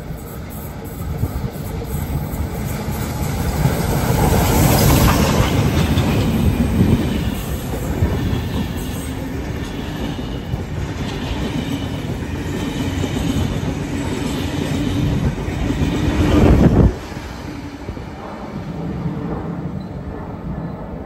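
Heritage train hauled by steam locomotive 3265 with diesel 4501 passing through at speed: a rumble of wheels over the track, loudest about five seconds in, with wheel squeal from the carriages. About seventeen seconds in the sound drops abruptly to a quieter rumble of the train running away.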